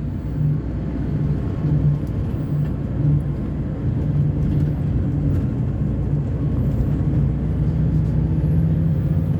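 Diesel engine of an Agrale MA 10.0 bus chassis running with a steady low drone.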